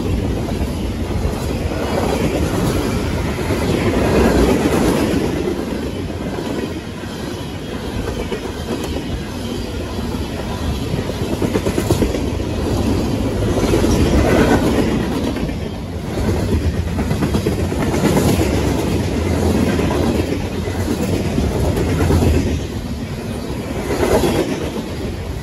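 Freight train's cars rolling past at close range: a steady loud rumble and rattle of steel wheels on the rails, swelling and easing every few seconds as each car goes by.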